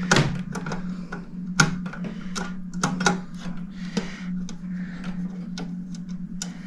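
Irregular small clicks and knocks of a clock movement being handled and shifted in its case, over a steady low hum.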